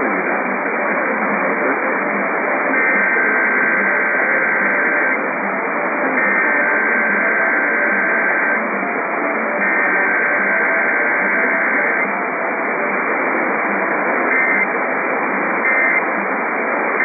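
Emergency Alert System SAME header: three long bursts of two-tone digital data screech, each about two and a half seconds with about a second between them. They sit over steady radio static, and two short data bursts come near the end.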